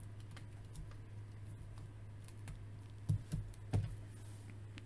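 Faint clicks and taps of hands handling a plastic action figure and toy motorcycle, with a few louder knocks a little past three seconds in, over a low steady hum.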